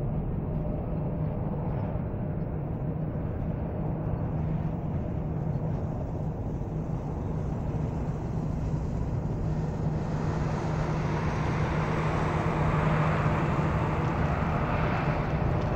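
Jet airliner engines running at taxi power: a steady rumble with a constant low hum. A louder rushing sound builds from about ten seconds in.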